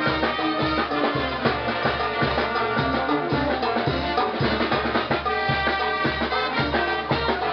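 Live Peruvian brass band (banda orquesta) playing dance music: trumpets and a sousaphone over bass drum, snare and cymbals, with a steady, even beat.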